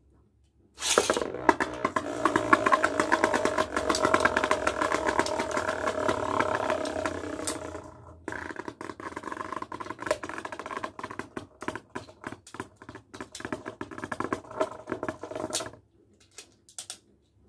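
Two Beyblade spinning tops battling in a plastic basin: a steady spinning whir with rapid clicking and scraping as they knock against each other and the basin wall. The sound drops about eight seconds in and stops near the end as the tops run down.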